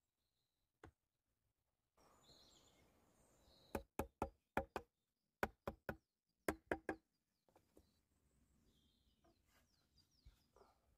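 Back of a hatchet knocking the joints of a wooden pole frame together: about ten sharp wooden knocks in quick clusters of two to four, starting a few seconds in.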